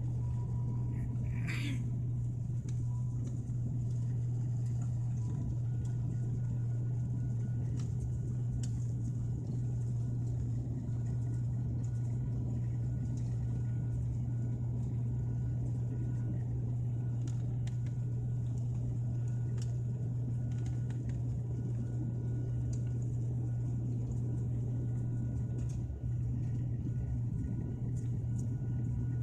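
Steady low drone of an airliner's engines and rushing air heard inside the cabin as the plane climbs after takeoff.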